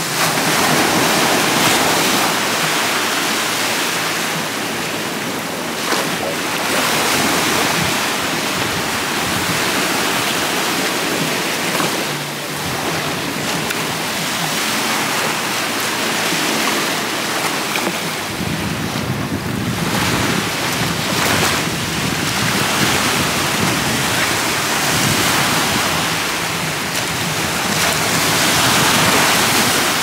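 Small sea waves breaking and washing up over sand in a steady rushing wash that swells and eases. Wind buffets the microphone, adding a low rumble from about halfway through.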